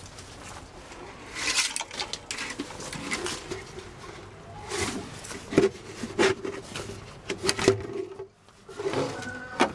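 Irregular rubbing, scraping and knocking sounds close to the microphone, with several sharper knocks.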